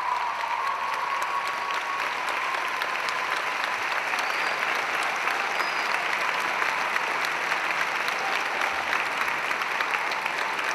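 Theatre audience applauding steadily, a dense unbroken clapping at the end of a stage performance.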